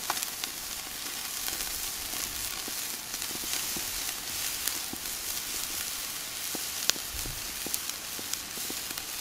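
Raw marinated chicken breasts sizzling on the hot grate of a charcoal kettle grill over mesquite charcoal: a steady hiss with scattered pops and crackles, one sharper pop about seven seconds in.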